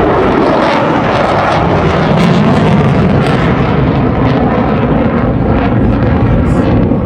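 Airplane engine noise as an aircraft flies past, loud and steady.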